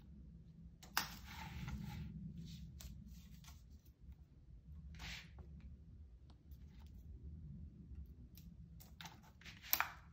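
Kitten at play: claws scratching and scrabbling on a rug and tile floor, with sharp clicks as paws and the plastic cat toy are knocked about. A sharp click about a second in is followed by about a second of scratching, and a cluster of clicks comes near the end.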